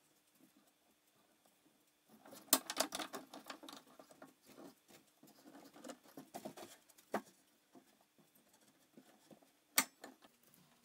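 Handling a corner clamp on a plywood drawer corner: faint scratchy rubs and small clicks as the clamp is fitted and adjusted, with a sharper click about seven seconds in and another near the end.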